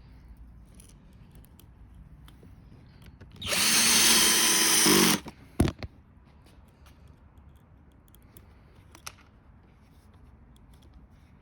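Cordless electric screwdriver driving in a screw: one run of about a second and a half, starting about three and a half seconds in, with a steady motor whine, followed by a short knock.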